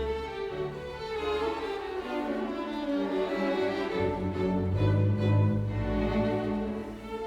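Orchestral background music, bowed strings playing held notes over a moving bass line.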